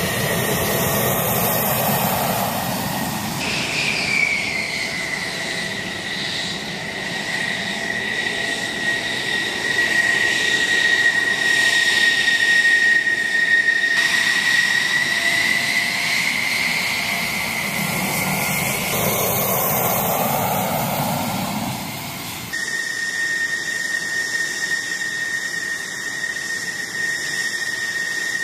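Military jet engines at taxi idle, F-16s and then an A-10: a high, steady whistle over a rushing hiss. The whistle slides down in pitch a few seconds in and then holds. A swell of engine rush rises and falls near the start and again about two-thirds through as a jet passes. The sound changes abruptly twice, about halfway and near the end.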